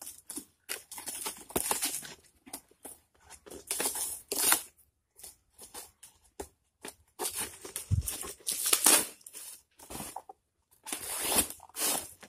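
Corrugated cardboard packaging being slit with a box cutter and torn open by hand, in irregular bursts of ripping and scraping with short pauses between them. A dull thump about eight seconds in.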